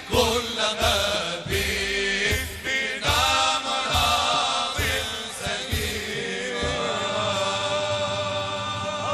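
Male voices chanting a Sufi dhikr: a sung melodic line over group chanting with a low rhythmic pulse, which gives way to long held notes in the last few seconds.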